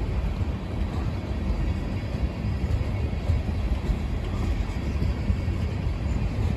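Freight train tank cars rolling past, a steady low rumble of steel wheels on the rails.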